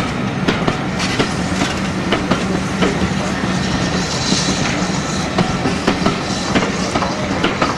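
Railway passenger coaches rolling past, their wheels clicking irregularly over the rail joints over a steady rumble.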